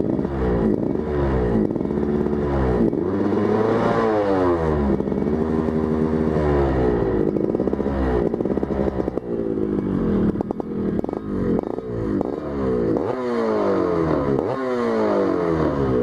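Motorcycle engine with a big carburettor breathing through a cut-down box air filter, ridden around with its pitch rising and falling again and again as it accelerates and eases off. The smaller air box keeps the intake's 'ngok-ngok' honk down.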